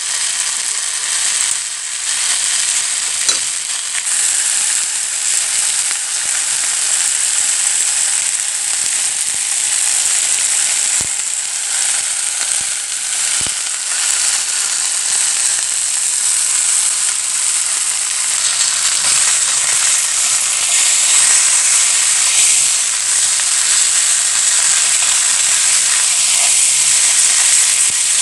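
Salt-crusted Pacific saury frying in a pan: a steady sizzle that grows a little louder in the second half, with a couple of sharp clicks around the middle.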